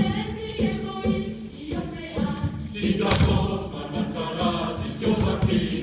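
Mixed choir singing a chant, over a steady beat of low thuds.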